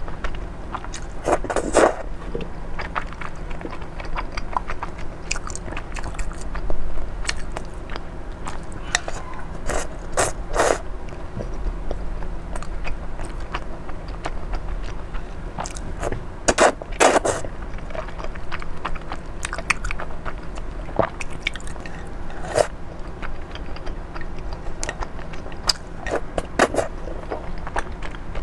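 Close-up chewing and slurping of thick, chewy sweet-potato starch noodles (fen haozi) in chili oil, with many small wet mouth clicks and several louder slurps spread through.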